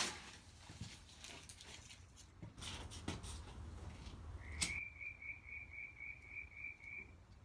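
Hands rustling paper and charcoal in a brake-drum forge, then a single sharp click as a lighter is struck to light the paper. A quick run of about nine short, high chirps follows over the next two and a half seconds.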